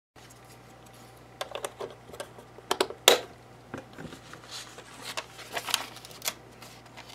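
Scattered plastic clicks and knocks from a FrSky Taranis QX7 radio transmitter's case being handled, about a dozen in all, the loudest about three seconds in, over a faint steady hum.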